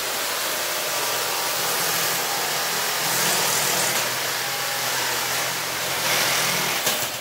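Cordless reciprocating saw cutting through PVC pipe, running steadily and stopping abruptly near the end as the cut finishes.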